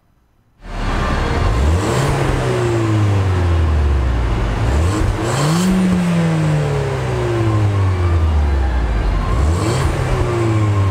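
2016 Ford Fiesta ST's turbocharged 1.6-litre inline-four, heard from behind at its dual exhaust tips, running and free-revved three times. The sound comes in suddenly about half a second in, and each rev rises quickly and falls back slowly to idle.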